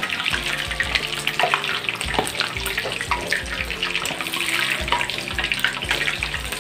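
Pork leg deep-frying in very hot oil on its second fry: a steady dense sizzle with many small crackles and pops.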